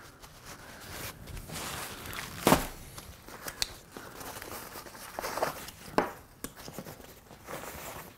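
Nylon backpack fabric rustling and shifting as it is handled, with a few sharp knocks and clicks, the loudest about two and a half seconds in.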